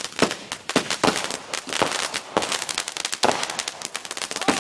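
Consumer fireworks going off: a string of sharp cracks and pops, a few a second at uneven intervals, over a steady hiss.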